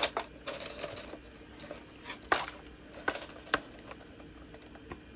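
Small hard objects being handled and set down on a work table: a few separate sharp clicks and knocks with a brief rustle, the loudest knock about two and a half seconds in.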